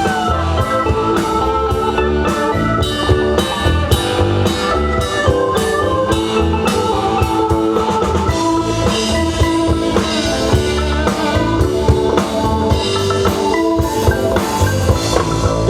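Live band music: a drum kit and guitar playing a steady, loud rock groove.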